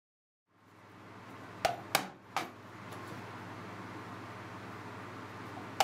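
Leatherworking hand tools knocking on a workbench: three sharp knocks in quick succession about one and a half seconds in, then three more near the end. Under them is a steady low hum.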